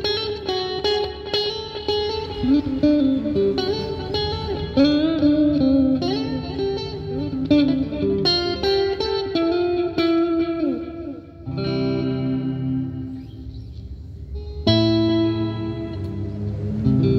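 PRS Custom-style electric guitar played through an effects pedal: quick lead phrases with several string bends, then notes left ringing for about three seconds before a loud new phrase starts near the end.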